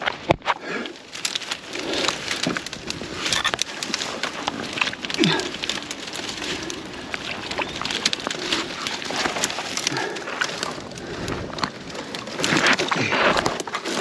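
Dry twigs and branches cracking and rustling as a person forces a way through a dense thicket, with many short snaps scattered throughout. The brush scrapes close past the camera's microphone.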